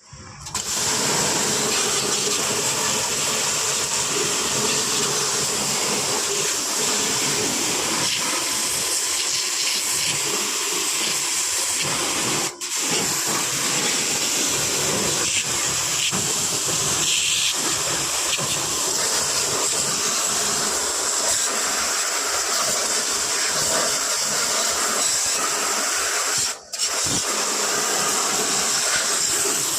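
High-pressure water jet spraying with a steady hiss, as when an air conditioner is jet-washed during a service. It breaks off briefly twice.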